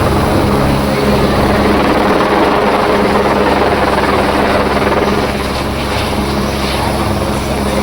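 Helicopter's rotor and engine running loud and steady.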